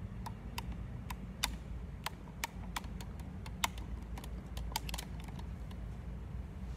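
Handling noise of a phone camera being repositioned: a string of irregular small clicks and taps that stops about five seconds in, over a steady low hum.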